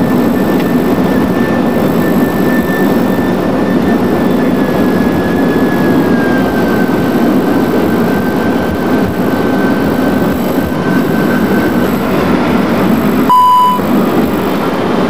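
Airbus A310 flight deck during the landing roll: a loud, steady roar of jet engines and rushing air, with a thin high whine that slowly drops in pitch and fades out about twelve seconds in. Near the end a short beep sounds, the loudest moment.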